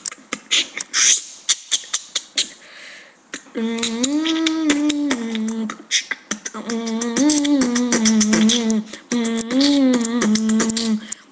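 Beatboxing. About three and a half seconds of quick, sharp mouth-percussion hits come first, then a pitched vocal melody held in long phrases, with percussive clicks kept going underneath.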